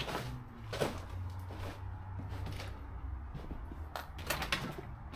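Scattered footsteps and small knocks and clicks, with a cluster of them about four seconds in, over a low steady rumble.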